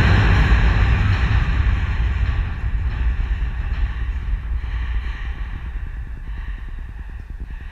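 Spectators cheering and yelling after a batted ball, a dense wash of crowd noise that breaks out suddenly and slowly fades over several seconds, with heavy low rumble on the microphone.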